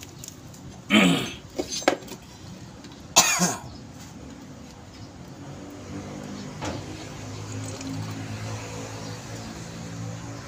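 A man coughs, loudly, about a second in and again about three seconds in, with a smaller catch between. From about six seconds a low steady hum runs under the rest.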